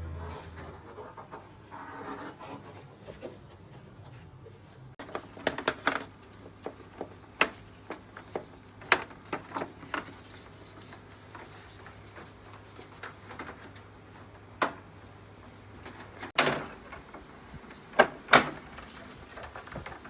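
Scattered clicks and knocks from installation work, tools and fittings being handled, over a faint steady low hum that stops about sixteen seconds in.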